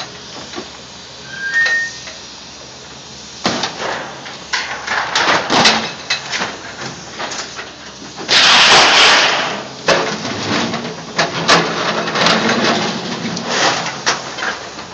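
Excavator bucket smashing and crushing a scrapped car body: repeated crunches and clanks of crumpling sheet metal, with one loud, drawn-out grinding crush about eight seconds in.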